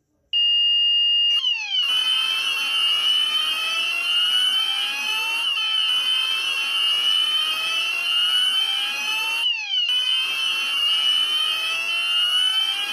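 Premier 9000 addressable fire alarm system sounding: a steady high beep for about a second, then about a second and a half in it switches to several overlapping rising whoop-like sweeps that repeat every few seconds, with a short break near the end. The change marks the alarm moving from the alert signal to the evacuation signal.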